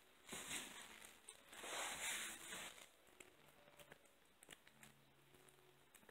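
Faint eating noises from a kitten at a bowl of raw chicken and egg: soft wet clicks of licking and chewing. Two soft rustles come in the first few seconds.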